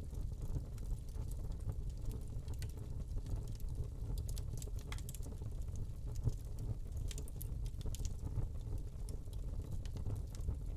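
Wood log fire burning in a fireplace: a steady low rumble of flames with irregular crackles and small pops scattered throughout.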